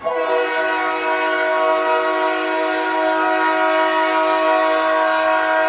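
Moncton Wildcats' hockey goal horn sounding one long, steady blast of several notes at once, like a chord, starting suddenly and held at an even level.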